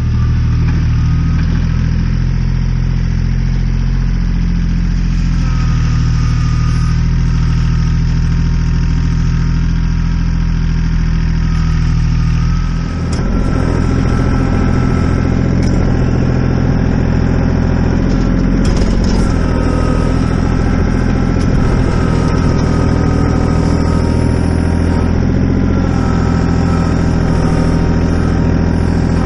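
An engine running steadily at a constant speed, its sound growing fuller about thirteen seconds in.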